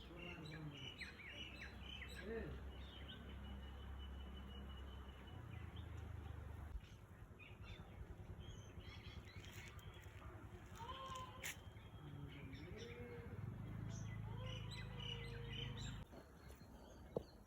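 Birds chirping in short, scattered calls, over a steady low rumble.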